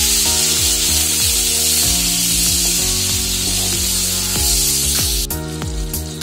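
Background music with a repeating pitched melody over loud sizzling of spiced onion-tomato masala in a hot pan, just after water has been added and stirred in with a wooden spatula. The sizzling cuts off suddenly about five seconds in.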